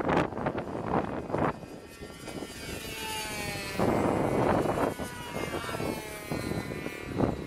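Radio-controlled model airplane flying past, its motor and propeller whine sliding down in pitch as it goes by. Gusts of wind rumble on the microphone at times.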